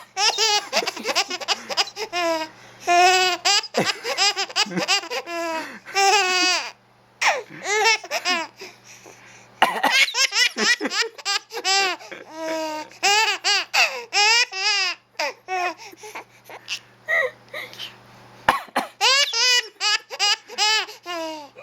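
A baby laughing in repeated bouts of high-pitched giggles and belly laughs. The laughter is set off by an adult's coughs: a sudden sharp sound comes twice, about ten and eighteen seconds in, and each time a fresh bout follows.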